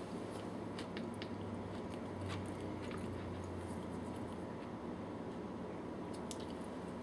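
Faint squishing and small clicks of fingers digging soft canned cheddar out of an open tin can, over a steady low hum.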